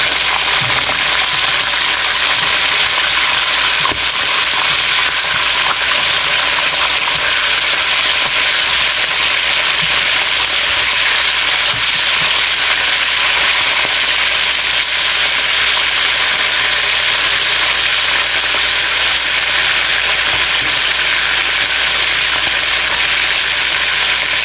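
Chicken drumsticks sizzling steadily as they fry in hot oil in a wok.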